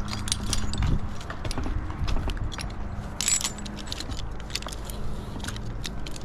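Climbing hardware clinking and jangling: many light metallic clicks, with a brief scrape a little past the middle, over a steady low hum.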